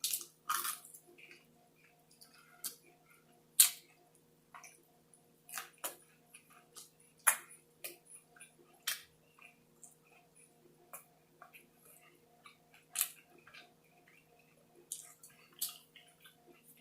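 Close-miked eating sounds: irregular sharp mouth clicks and smacks of chewing, over a faint steady hum.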